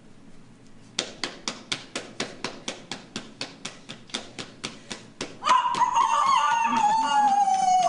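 Played-back sound score: a fast run of sharp ticks, about four a second, that fades, then about five seconds in a loud drawn-out call that holds and slowly falls in pitch.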